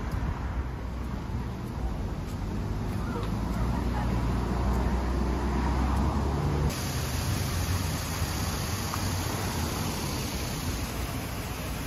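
Road traffic: cars passing with a steady low rumble, which changes abruptly about halfway through to a lighter, hissier traffic noise.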